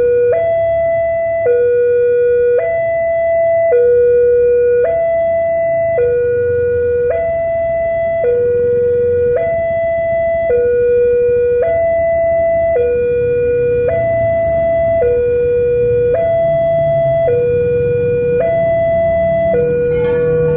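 Railway level-crossing warning alarm sounding a steady two-tone signal, switching between a higher and a lower tone a little more than once a second. It warns that the crossing is closing for an approaching train.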